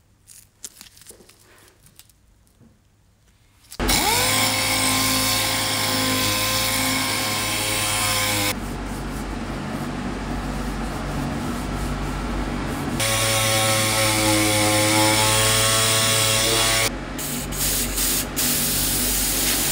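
Power sander sanding cured metal body filler on a motorcycle fuel tank. It spins up with a rising whine about four seconds in and runs loudly. Its steady whine turns to a rougher grinding noise for a few seconds, returns, then breaks up into shorter bursts near the end.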